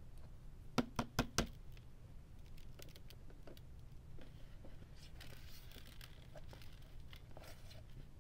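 Plastic stick-vacuum dust bin being emptied: four quick plastic knocks about a second in as it is tapped to shake out the packed lint, then scattered small ticks and a soft rustle of dust and debris falling onto carpet.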